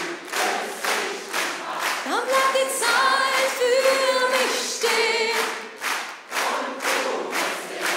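Concert audience singing along in chorus and clapping in time, about two claps a second. From about two seconds in, a single voice with vibrato rises above the crowd for a few seconds, holding long notes.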